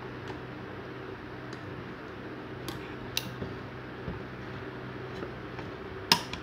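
Sharp, irregular plastic clicks as a Kawamura mechanical time switch is handled at its dial, a few faint and three louder, the loudest about six seconds in, over a steady low hum.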